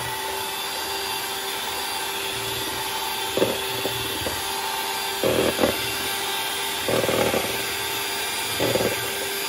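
Electric hand mixer running steadily, its twin beaters churning a thick flour, egg-yolk and butter batter in a bowl as milk is poured in. There are a few brief louder stretches as the beaters work through the batter.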